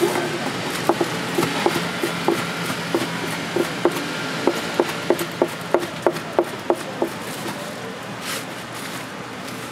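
A knife chopping on a wooden cutting board: a run of about eighteen sharp chops, roughly three a second, starting about a second in and stopping around seven seconds in.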